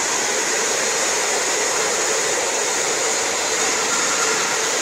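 Vacuum feeder sucking dry granules out of a bucket through a pointed suction wand and metal hose: a steady rushing hiss of air and grain.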